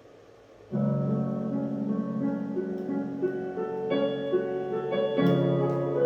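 Piano music played through a homemade amplifier and speaker box under test; after a brief gap a new track starts about a second in.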